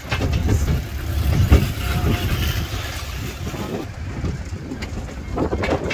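Tourist road train in motion: a steady low engine rumble with scattered clicks and knocks, the loudest knock about one and a half seconds in.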